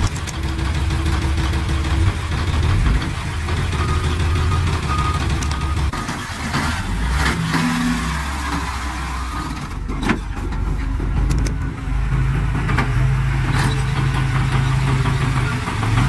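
Heavy diesel machinery engines running and changing load, with a few knocks and clanks and faint repeated beeps at times.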